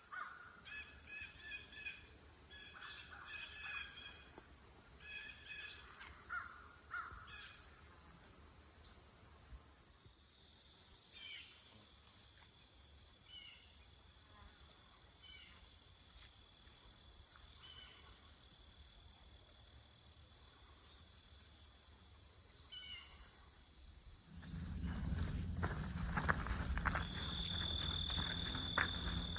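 A steady high-pitched chorus of insects, with a bird calling in short repeated notes during the first several seconds and a few single calls later. A low rumble comes in near the end.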